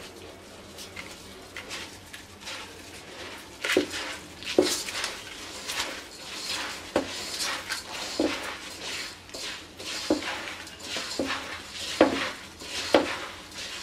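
A hand mixing raw broken rice with sliced onion, spices and oil in a non-stick pot: gritty rustling strokes of the grains with soft knocks against the pot. The strokes are quieter for the first few seconds, then come about once a second.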